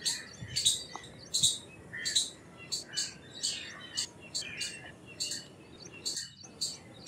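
Indian palm squirrel giving its repeated chirping call: short, sharp, high chirps, about three a second.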